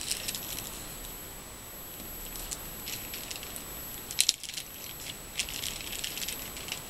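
Crinkly plastic packaging handled and pulled open by hand: irregular bursts of crackling, with two sharp clicks about four seconds in.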